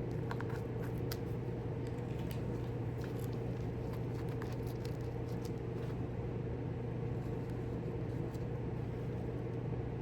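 A steady low hum, with scattered light clicks and taps of small parts being handled.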